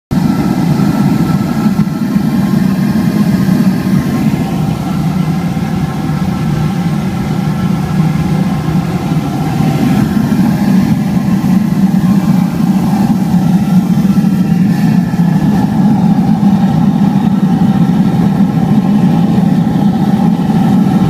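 Waste-oil foundry furnace running: its blower fan forcing air into the burner and the flame burning, a loud, steady, unbroken noise.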